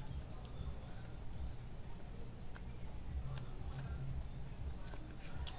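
Faint rustling and a few light clicks of hands handling a small EVA foam craft mask, over a low steady background hum.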